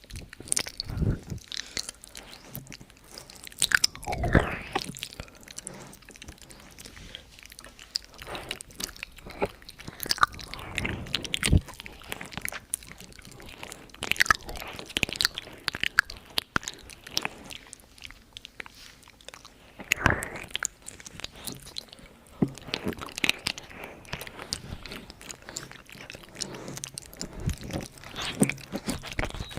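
ASMR mouth sounds close to the microphone: irregular clicks and smacks of the lips and tongue, a few of them louder.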